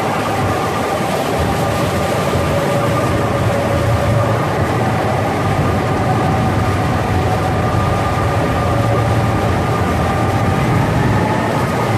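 Pilot boat running alongside a moving cruise ship: the boat's engines run steadily and water rushes between the two hulls, with a steady hum of several held tones over the rumble.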